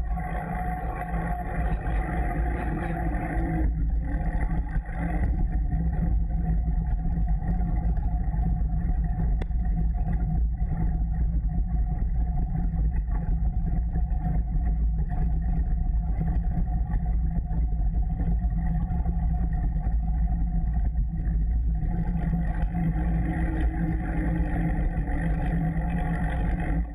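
Steady rolling and wind noise of a bicycle ride, picked up by a camera mounted on the bike: a low rumble of tyres on pavement and air rushing past. There is a brief knock about nine seconds in.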